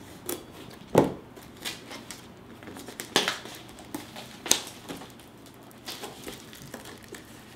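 Plastic shrink-wrap on a cardboard product box being slit with a kitchen knife and then pulled off by hand: a series of separate sharp crinkles and crackles, the loudest about a second in.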